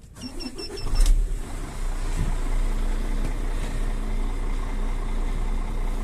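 A few short electronic beeps, then a semi-truck tractor's diesel engine starts about a second in and settles into a steady idle.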